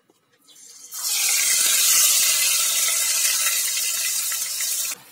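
Wet ground onion paste and cumin sizzling in hot mustard oil in a kadai, stirred with a wooden spatula. A loud, steady hiss starts about a second in and cuts off suddenly near the end.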